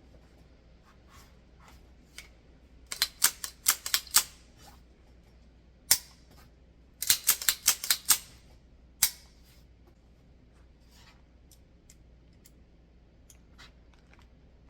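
Sharp metallic clicks from pistol parts and an Allen wrench being handled during reassembly, coming in two quick runs of several clicks each, with a few single clicks between them.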